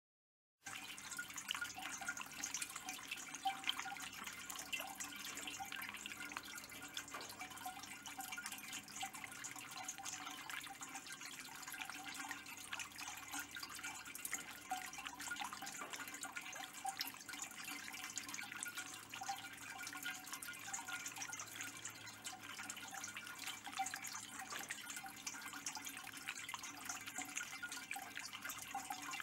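Kelkay Glazed Falls water feature running: water welling out of the top of its silver metal globe and trickling down over the surface in a steady splashing trickle. It starts about half a second in.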